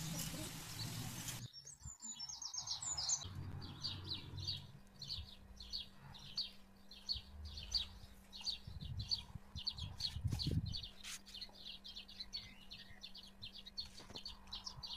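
Oil sizzling in a frying pan as sweet potato sticks fry, cut off abruptly about a second and a half in. After that, a bird chirping over and over, about three short high chirps a second.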